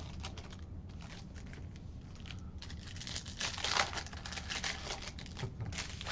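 Foil wrapper of a baseball card pack crinkling and crackling in the hands as it is pulled open, with quick small clicks of handling.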